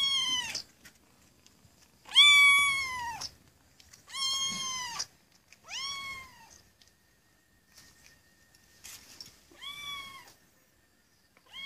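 A cat meowing repeatedly: about six drawn-out meows, each rising and then falling in pitch, the second one the longest and loudest.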